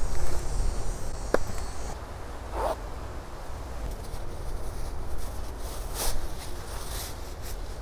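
Parachute-nylon hammock and its stuff sack rustling and swishing as hands work the hammock out of the bag, with a few short sharp handling noises.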